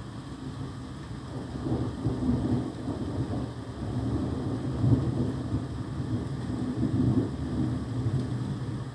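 Thunder rumbling in a thunderstorm with rain: a low roll that builds about a second and a half in and rolls on for several seconds before easing near the end.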